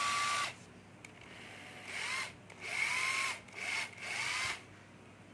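Cordless drill/driver motor run in short trigger pulls: each time a whine rises as the motor spins up, then holds. One run stops about half a second in, and four short runs follow between about two and four and a half seconds.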